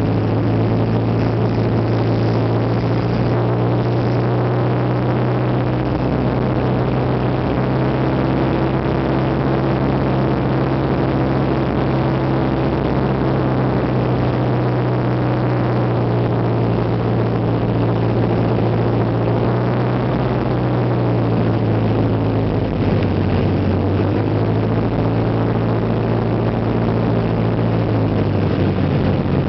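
Piper Warrior PA-28-161's four-cylinder Lycoming engine and propeller running steadily in flight, a loud, even drone. The engine note shifts slightly lower about 23 seconds in, as with a power change on approach.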